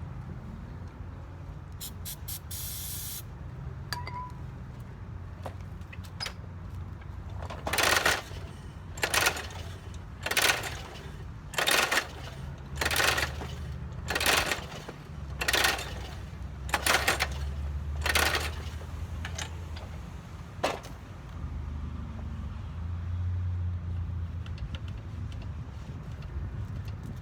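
A short hiss from a spray can of starting fluid. Then a push lawn mower's recoil starter is pulled about a dozen times, roughly once a second, and the engine does not catch. The owner suspects a lack of compression or spark.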